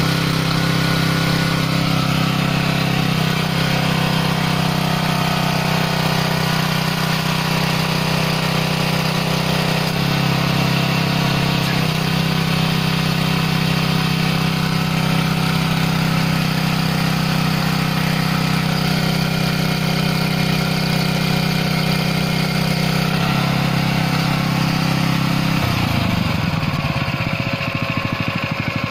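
Small gasoline engine driving a hydraulic pump, running steadily with small shifts in its note now and then. Near the end it slows and its pitch drops.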